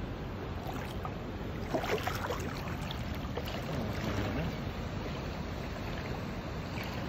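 Shallow seawater sloshing and splashing, with a steady rumble of wind on the microphone. Sharper splashes come about two seconds in and again around three to four seconds in.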